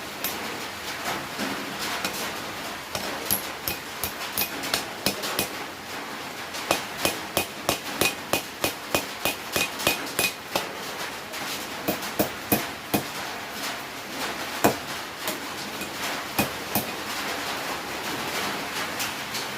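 Blacksmith's hammer striking hot half-inch round steel on an anvil in runs of blows, including a steady run of about two strikes a second in the middle, with one heavier blow about three-quarters of the way through. A steady hiss lies underneath.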